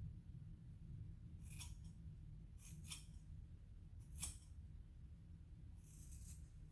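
Scissors snipping through straightened hair, faintly: three short snips a little over a second apart, then a longer rustle near the end.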